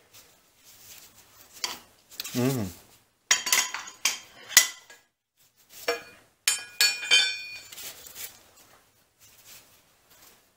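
Metal machine parts being handled on a milling machine, clinking and knocking together in scattered strikes, with one sharper knock about halfway through and a cluster of ringing clinks a little later. A short vocal sound about two and a half seconds in.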